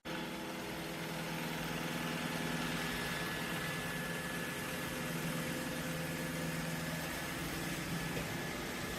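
iRobot Roomba j7+ robot vacuum running: a steady motor hum and hiss with a thin high whine above it, starting abruptly.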